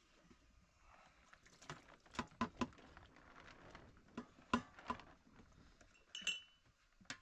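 Scattered light clicks and clinks, a few sharper knocks between about two and five seconds in, and a brief high squeak near the end.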